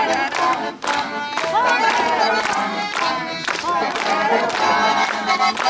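Instrumental music of a song playing between sung verses, with a gliding melody line over the accompaniment.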